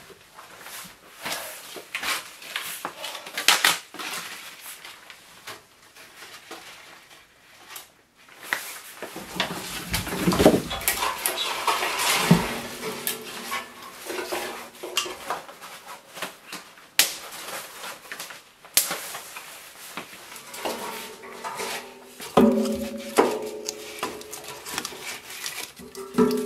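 Split kindling and sticks knocking and clattering as they are stacked into a steel barrel woodstove, with clinks against the metal firebox and door and a stretch of rustling twigs and bark about ten seconds in. A few held musical notes come in near the end.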